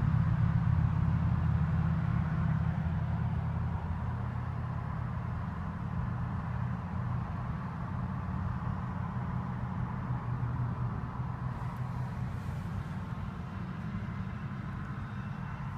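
Steady low vehicle rumble heard from inside a car's cabin, slowly fading.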